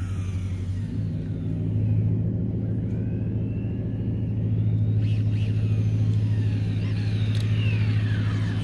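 Electric motor of a Kyosho Fazer 2WD RC car on a 4S Kyosho Inferno system, whining as it drives on asphalt. The whine rises and falls in pitch with the throttle, and near the end it comes close and falls in pitch. A steady low hum runs underneath.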